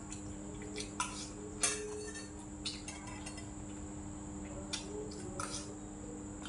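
Metal spoon and chopsticks clinking against a stainless steel rice bowl and ceramic dishes: a handful of light, scattered clinks, several close together near the end, over a steady background hum.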